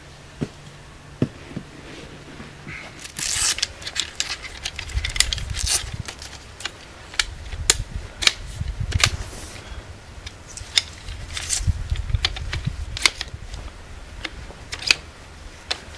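Travel tripod being set up: a run of sharp clicks and light clatter as the leg locks are worked and the legs are unfolded and extended.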